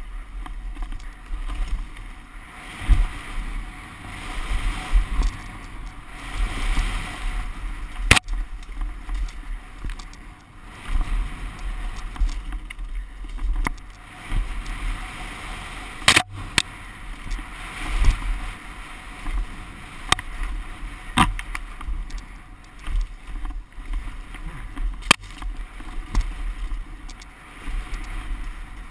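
Helmet-camera ride audio on an NS Bikes Snabb downhill mountain bike: a steady rushing noise of wind and tyres rolling over wet rock and dirt, surging with the terrain, broken by a few sharp knocks as the bike hits rocks and edges.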